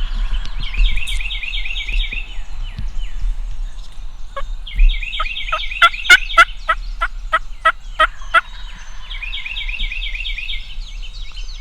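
Wild turkey calling: a loud series of about a dozen sharp, evenly spaced calls in the middle, with a small bird's rapid chirping trill repeating before, during and after it.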